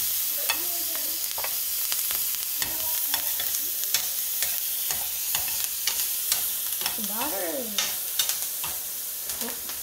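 Diced red onion and garlic sizzling in butter in a stainless steel skillet, sautéing until translucent, with the frequent clicks and scrapes of a spatula stirring against the pan.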